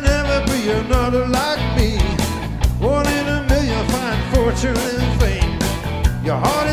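Live blues-rock band playing: a man sings lead over electric guitars and bass with a steady beat.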